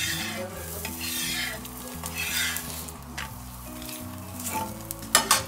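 A metal spatula scraping and pressing a parotta on a hot blackened tawa, in four short scrapes over the first few seconds, then two sharp clanks of the spatula on the pan a little after five seconds. Quiet background music plays underneath.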